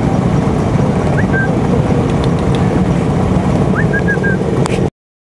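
Vespa scooter engines idling, a steady low rumble that cuts off suddenly near the end.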